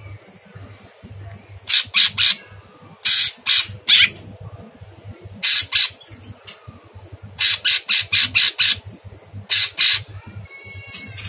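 Caged cucak cungkok leafbird singing in bursts of very harsh, scratchy notes, two to six in quick succession, with short pauses between. A faint rapid rattle comes near the end.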